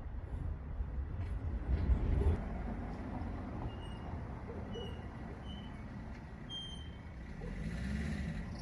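Steady low outdoor rumble, like city traffic, with a handful of short high chirps in the middle.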